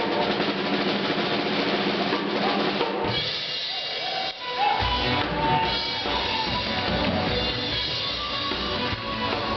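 Music with a drum-kit beat over a busy background; a steady bass-drum beat comes in about five seconds in.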